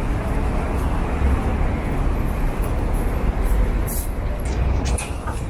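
City street traffic noise: a steady rumble of passing road vehicles, with a few light ticks from about four seconds in.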